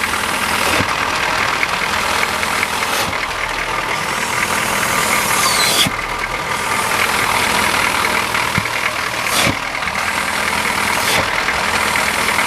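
GM 6.2 diesel in a Chevy K5 Blazer idling while its air intake is blocked by hand, the engine sucking hard on the opening with a loud rushing intake noise that changes abruptly a few times. Being unthrottled, the diesel draws full air at idle, which the owner links to the roaring he noticed while driving.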